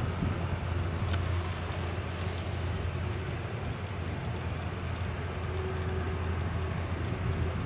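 Steady low rumble of a Boeing 737's jet engines at taxi power, with a faint steady whine joining about five and a half seconds in.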